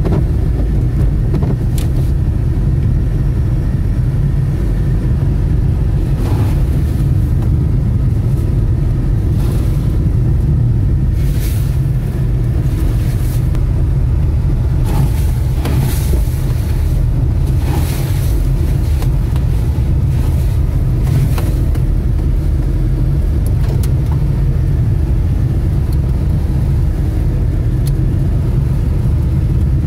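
Car driving on a rough dirt road, heard from inside the cabin: a steady, loud low rumble of engine and tyres, with scattered brief knocks and rattles, several in a cluster around the middle.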